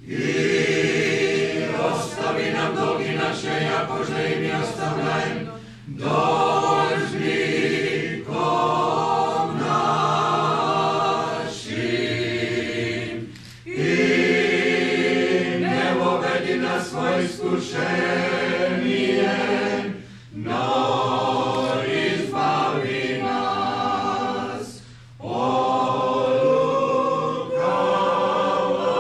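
Small a cappella choir of mixed voices singing an Orthodox funeral chant, in phrases broken by short pauses for breath.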